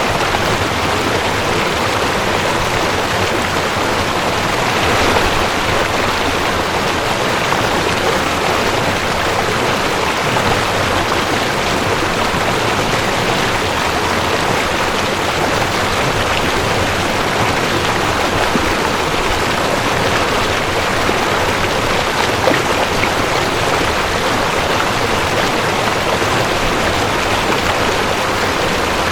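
Mountain stream rushing over rocks: a steady, dense rush of water with a slight swell about five seconds in.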